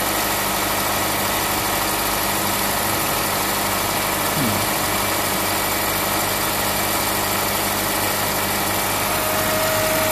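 2008 Honda Civic Hybrid's 1.3-litre four-cylinder engine idling steadily, heard up close under the hood, with a freshly fitted serpentine belt running on its pulleys. It runs evenly with no belt squeal, which the owner takes as a sign that the new belt fits and runs well.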